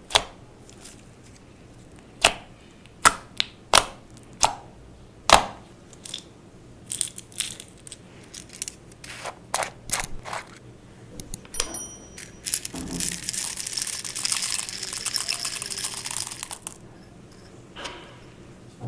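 Clear slime being squished and mixed by hand with makeup: a run of sharp sticky pops and clicks, then about four seconds of dense crackling.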